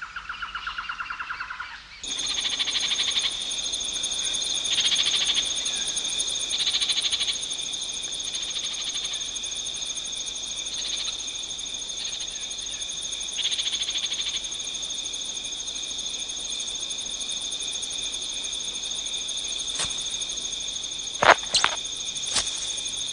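Night-forest ambience of chirring calls: a pulsing trill for the first two seconds, then a steady high chirring with louder swells every few seconds. A few sharp clicks near the end.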